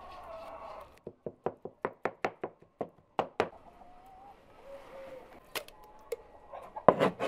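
A quick run of about a dozen sharp knocks, roughly five a second, then a few scattered knocks and a louder cluster of knocks near the end.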